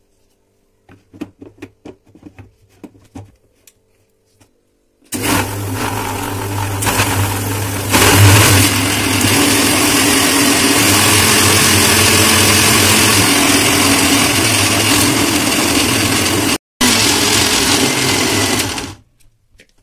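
Bajaj FX10 food processor's mixer-grinder jar wet-grinding soaked poppy seeds, almonds and fennel into a paste. The motor starts about five seconds in, after a few light clicks as the jar is fitted. It gets louder about eight seconds in, runs steadily with a brief break, and stops shortly before the end.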